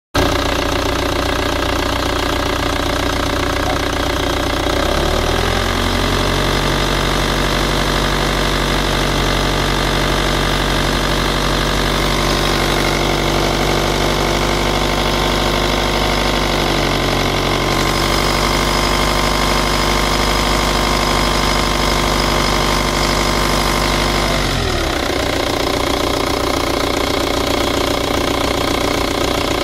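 Ford Mondeo 2.0 TDDI diesel engine running, heard close to its front pulleys. Engine speed rises slightly about five seconds in and drops back near the end. Under it, a faint high-pitched tapping and at times a slight grating, which the owner puts down to a faulty pulley.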